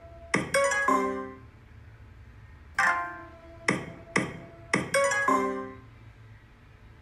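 Pachislot machine being played: sharp clicks of the reel stop buttons, each set followed by short electronic chime tones from the machine. About three seconds in a new spin starts with a click and tones, then three quick stop clicks halt the reels one after another.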